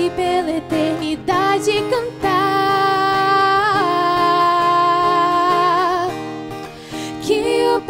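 A woman singing a slow melody with long held notes, over acoustic guitar. The voice drops out about six seconds in, leaving the guitar, and comes back in near the end.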